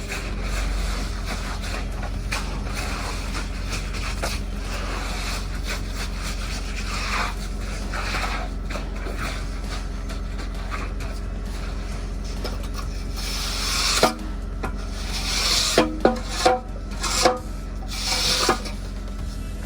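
Magnesium hand float rubbing and scraping over freshly placed concrete in repeated strokes as the surface is spread and floated, over a steady low machine hum. Several sharper, louder scrapes come near the end.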